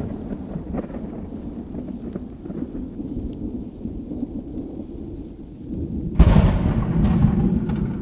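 Thunder rumbling low and steady, then a loud thunderclap about six seconds in that rolls on.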